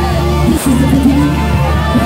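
Loud live worship music from a church band, with held chords over a steady bass.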